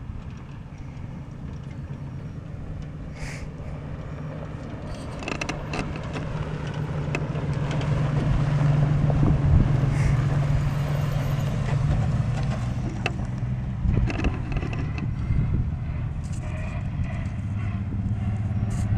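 Subaru Impreza WRX STi rally car's boxer engine running at a steady, unrevved note as the car limps off the stage on gravel. It grows louder as it nears, is closest about halfway through and then fades, with stones crackling under the tyres. A second rally car's engine grows closer near the end.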